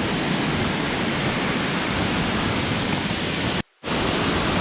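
Waterfall crashing: a steady, dense rush of falling water, cut off completely for a fraction of a second about three and a half seconds in.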